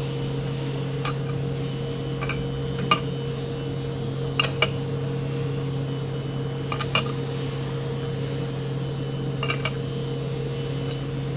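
Steel T-handle chuck key clinking in the jaw screws of a lathe's four-jaw chuck as the jaws are adjusted to true up the work: scattered sharp metallic clicks, several in close pairs, over a steady machine hum.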